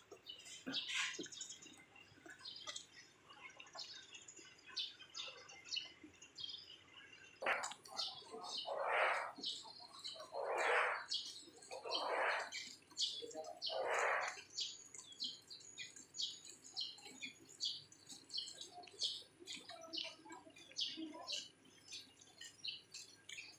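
Birds chirping outdoors, many short high calls throughout. In the middle stretch there are four louder, lower sounds, each under a second long and about a second and a half apart.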